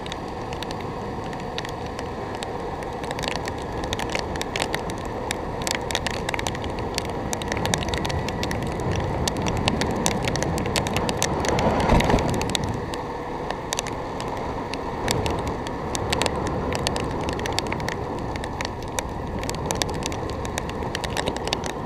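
Riding noise of a motorized two-wheeler on the move: steady wind and road rush on the microphone, with scattered sharp clicks all through and a louder swell about twelve seconds in.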